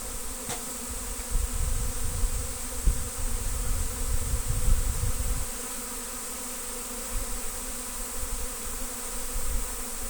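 Large honey bee swarm in flight, a steady mass buzzing drone of many wingbeats, like an airplane spooling up to take off. Low rumbling on the microphone comes and goes through the first half.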